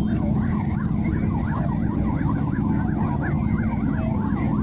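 A siren sweeping quickly up and down in pitch, about four sweeps a second, over a dense, steady low rumble.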